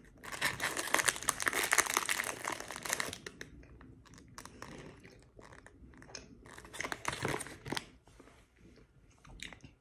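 Thin plastic fruit-snack pouch crinkling as it is handled. There is a long spell of crackling over the first three seconds and a shorter one around seven seconds in.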